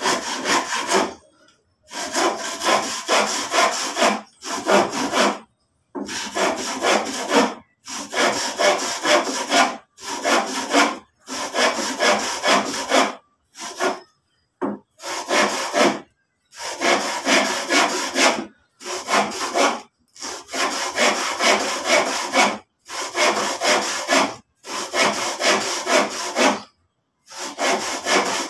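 Handsaw cutting through old lumber, stroke after stroke, in runs of a few seconds broken by sudden silences.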